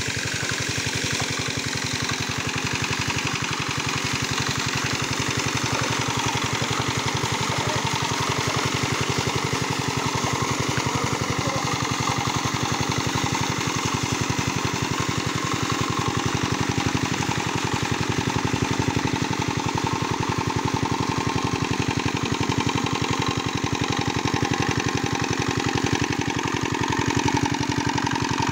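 Single-cylinder diesel engine of a shallow-machine irrigation pump running steadily at a fast, even firing rate, over the splash and rush of the pump's water jet crashing back onto the pond surface. The jet is churning the pond to aerate the water for the fish.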